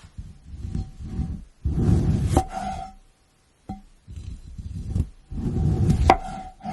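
Crisp crunching of grape berries in five or so bursts about a second long each, a couple of them ending in a sharp click with a brief ringing tone.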